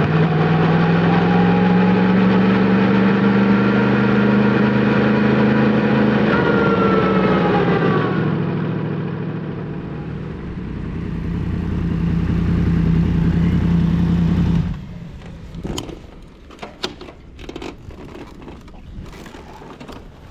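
Yamaha MT-10 SP's crossplane inline-four, fitted with an Akrapovic titanium slip-on exhaust, running steadily at low revs with a brief dip in pitch, then switched off suddenly about 15 seconds in. Scattered clicks and knocks follow.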